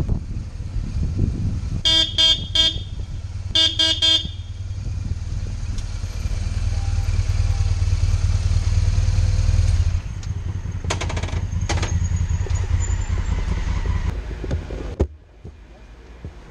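Motorcycle engine running at low speed, with its horn tooted in two quick bursts of three beeps about two and four seconds in. The engine is then switched off about a second before the end.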